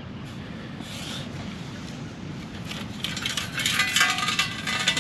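Perforated stainless steel sand scoop digging into beach sand and being shaken, sand rushing and scraping through the metal scoop with light clinks. It starts about three seconds in and gets louder.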